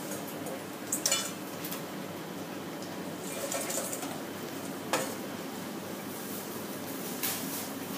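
Stainless steel bowl clanking and rattling as battered fish is tossed in it and set down, with sharp metallic clanks about a second in, around five seconds and again near seven seconds, over a steady background hum.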